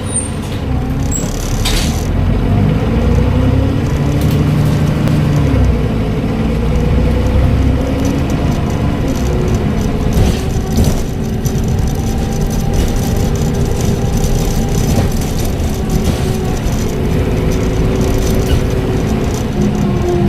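Transbus Trident double-decker bus with a Voith automatic gearbox running on the road: the diesel engine and driveline note rises and falls in pitch several times as the bus pulls and changes gear, with a turbocharger whistle above it and a few short rattles.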